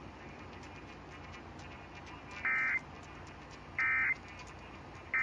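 EAS SAME end-of-message (EOM) data bursts, the digital tones that close an Emergency Alert System message. Two short bursts about a second and a half apart, the first about two and a half seconds in, over a faint steady hiss.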